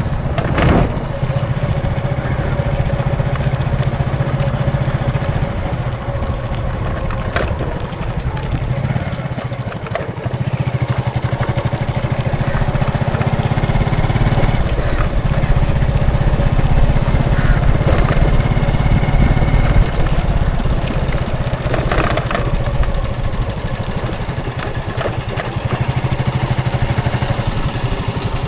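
Busy road traffic: vehicle engines running steadily in a continuous low rumble, with a few short sharp knocks about a second in, around seven seconds in and around twenty-two seconds in.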